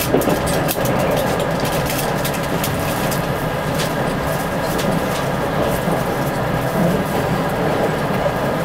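Keisei Skyliner train running at speed, heard from inside the passenger car: a steady rumble of wheels on rails with light scattered ticks.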